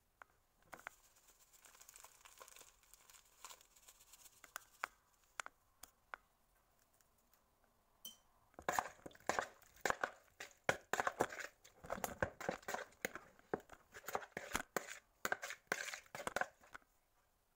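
A metal spoon stirring spice-dusted raw seafood (shrimp, mussels, squid rings and fish pieces) in a bowl: a dense, irregular run of wet clicks and scrapes from about halfway through almost to the end. Before that, softer rustling with a few scattered clicks.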